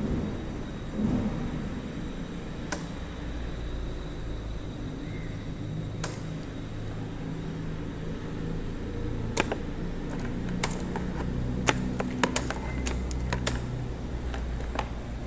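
Yamaha LC135's single-cylinder four-stroke engine idling steadily, with a brief swell about a second in. Sharp clicks are scattered through the second half.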